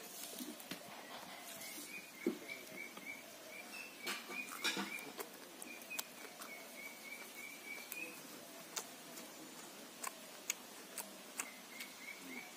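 Mouth sounds of a person eating rice and fish by hand: chewing and sharp lip-smack clicks. Behind them an animal calls in a rapid series of short high chirps, about five a second, in two runs.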